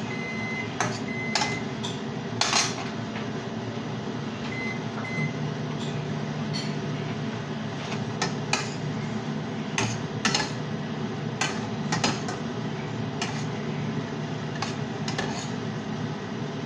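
A utensil knocking and clinking against a stainless steel frying pan while noodles are stirred, a dozen or so irregular sharp clicks over a steady hiss.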